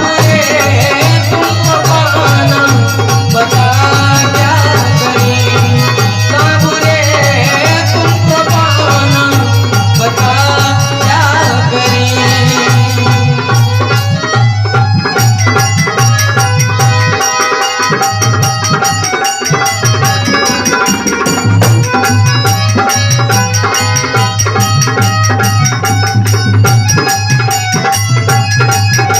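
Hindi devotional bhajan music: a melody over a steady drum beat, with a short break in the beat about two-thirds of the way through.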